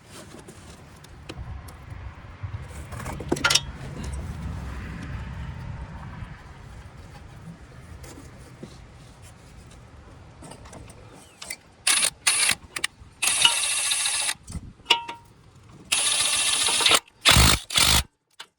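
Metal tools and parts clinking and rubbing, then near the end several short bursts of a small power tool running, each up to about a second long, as bolts are run in on the reassembled A/C compressor lines.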